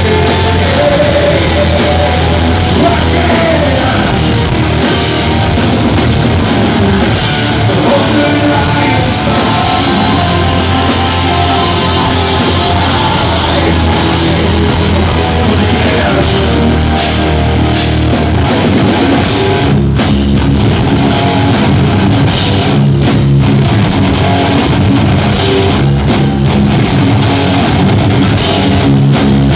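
A live heavy metal band playing loud: distorted electric guitars, bass and drums, with a singer, heard from the crowd. In the second half the riff turns choppy, with short stops.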